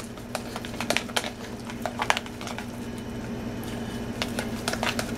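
A utensil stirring and mashing potatoes with milk in a metal saucepan, making irregular clicks and scrapes against the pot. A steady low hum runs underneath.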